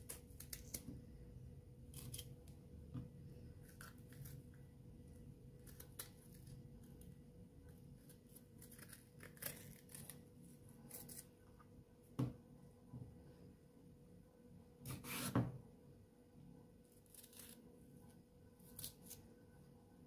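A green bell pepper being cut with a small knife and its core and seeds pulled out by hand on a wooden chopping board: scattered crisp snaps, tearing and knife clicks. The loudest snap comes about fifteen seconds in.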